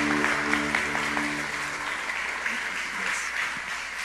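Audience applauding, with a held keyboard chord that stops about two seconds in; the applause thins toward the end.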